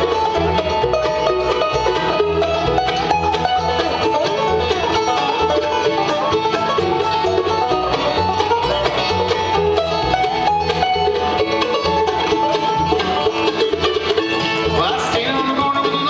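Bluegrass band playing mandolin, five-string banjo and acoustic guitar together in a brisk, continuous run of plucked notes over a steady low beat.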